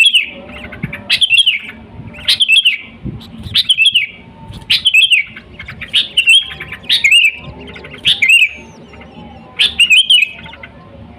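Sooty-headed bulbul singing: short, bubbly whistled phrases repeated about once a second.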